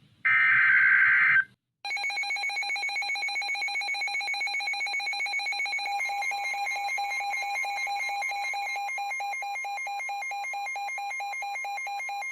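The tail of a NOAA Weather Radio SAME digital header burst, then a weather radio receiver's electronic alert alarm: fast, even buzzing beeps for about twelve seconds, joined about six seconds in by the broadcast's steady warning alarm tone. Together they mark the start of a new severe thunderstorm warning.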